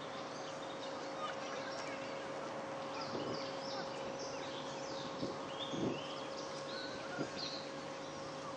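Railway station ambience: a steady hum holds one tone throughout, while short high chirps, like small birds, come in a cluster around the middle, with a few soft knocks in the second half.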